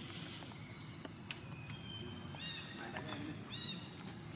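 Baby monkey giving short high-pitched squeaks in two brief clusters about halfway through, over steady outdoor background noise with a few faint ticks.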